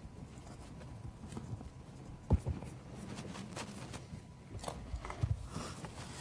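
Low room noise with a single sharp knock about two seconds in and a few faint taps and clicks near the end.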